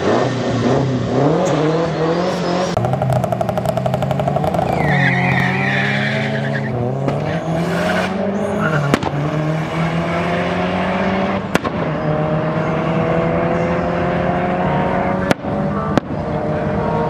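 Two road cars launching side by side on a drag strip. Their engines rev up and down at first, a brief tyre squeal comes about five seconds in, and then the engines rise steadily in pitch as the cars accelerate away down the track.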